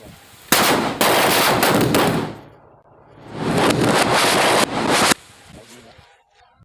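Diwali firecrackers going off in rapid crackling runs: a long, loud burst of quick-fire pops, a pause of about a second, then a second burst that stops abruptly.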